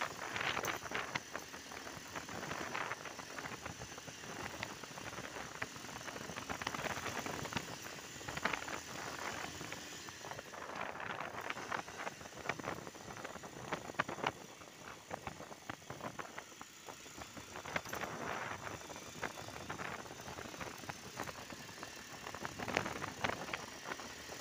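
A motorbike riding along a rough, patched road: wind buffets the microphone in swells every few seconds, with frequent short rattles and knocks from the bike going over the bumps, and the engine running underneath.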